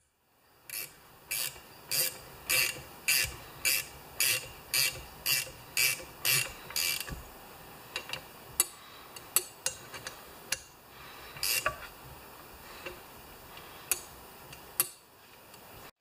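Metal ratcheting in a steady run of strokes, about two a second, for the first half, then scattered metal clicks and taps, from work on the flywheel hub and starter pawls of a Homelite XP-1020 chainsaw.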